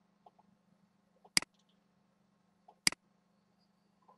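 Computer mouse button clicks: two sharp clicks about a second and a half apart, each with a softer click just before it, over a faint steady low hum.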